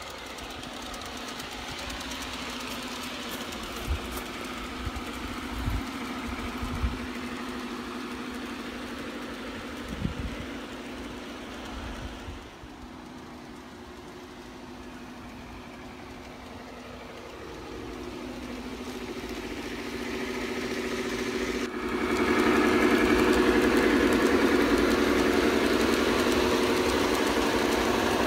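G-scale model train running on garden track: a steady motor and wheel hum with a few sharp knocks in the first ten seconds. About three-quarters of the way through it becomes clearly louder and fuller.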